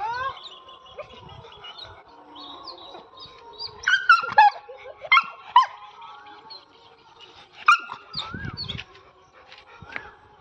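A dog and a young monkey play-fighting, with high-pitched whines and short yelping squeals, the loudest about four to five seconds in and again near eight seconds.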